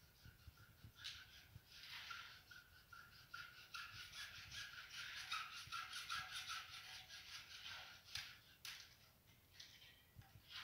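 Hacksaw cutting through PVC drain pipe: a faint run of quick, repeated back-and-forth rasping strokes that stops about eight seconds in, followed by a few light knocks.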